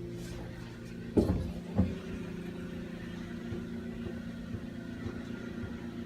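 A steady machine hum made of several even tones, with two sharp knocks a little over a second in, about half a second apart.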